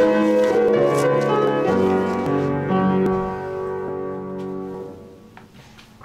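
Closing music played on a keyboard instrument: slow sustained chords, ending on a held chord that fades away about five seconds in.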